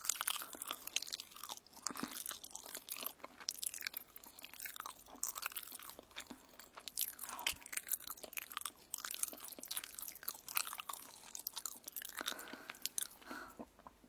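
Crisp toast being bitten and chewed close to the microphone, a dense run of irregular crunches and crackles.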